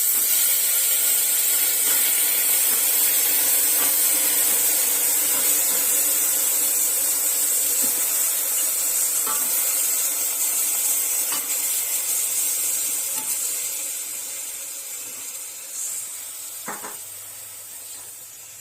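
Washed koorkka (Chinese potato) tubers sizzling in hot oil and spice powder in a pressure cooker: a loud, steady hiss that slowly dies down over the last several seconds.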